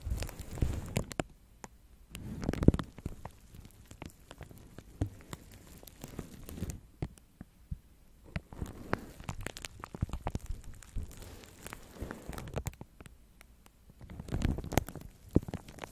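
Soft makeup brushes stroking a microphone wrapped in plastic film: irregular crinkling crackles over low muffled rumbles where the bristles press on the mic. The rumbles swell about two and a half seconds in and again near the end.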